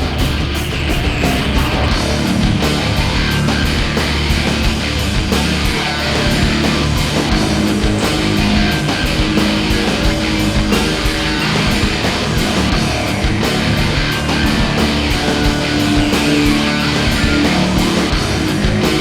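Background music: loud, distorted guitar rock with a steady driving beat.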